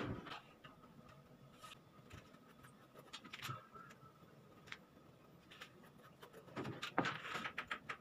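Faint scattered knocks, taps and scrapes of wood being handled on a plywood sheet as a long wooden straightedge is laid across it, with a busier run of knocks about seven seconds in.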